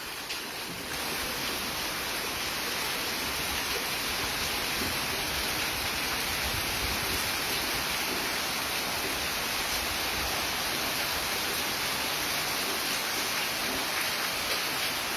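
Heavy rain falling steadily, growing a little louder about a second in.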